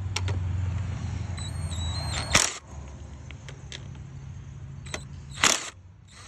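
Cordless drill with a 10 mm socket run in two short bursts, about three seconds apart, spinning off the nuts that hold the air filter housing on a 212cc Predator engine. A steady low hum sits under the first part and drops away at the first burst.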